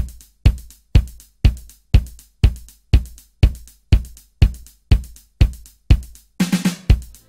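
Drum-only break in a dance extended mix: a kick drum beats steadily about twice a second, with a short snare fill near the end before the full band comes back in.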